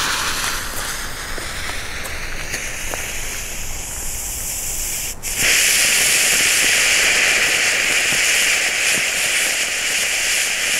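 Leslie 'Magical' gold fountain firework hissing as it sprays sparks, with a brief drop about five seconds in before it comes back louder and fuller.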